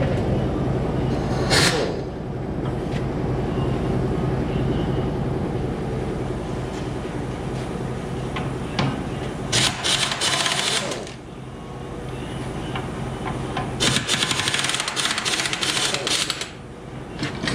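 Pneumatic impact wrench hammering in bursts, undoing bolts to split the tractor in half: a short burst about a second and a half in, then longer runs of a second or two around ten seconds and again from about fourteen to sixteen seconds. A steady low hum runs underneath.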